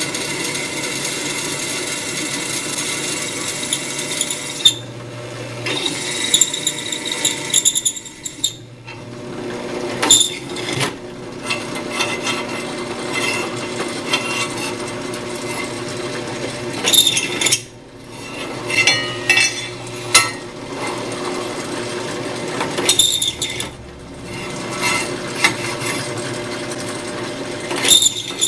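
Drill press motor running steadily while a twist drill bores holes in a metal mounting plate. Sharp metal clanks come several times as the plate is shifted on the cast-iron table.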